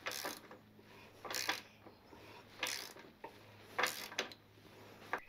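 Spanner turning the nut on a long bolt used as a press, four short rasping strokes about a second and a quarter apart, as it draws the new lower outer race of the steering-head bearing into the motorcycle frame.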